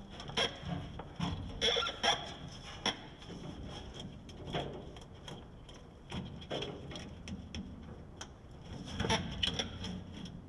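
Irregular light clicks and knocks of hand work on parts and tools, busiest about nine seconds in.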